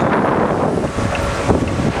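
Heavy construction machinery running at a roadworks site, with wind buffeting the microphone and a sharp knock about one and a half seconds in.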